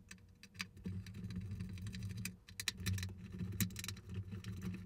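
Small screwdriver backing screws out of a hollow plastic display base, with many light irregular clicks and ticks of metal on plastic.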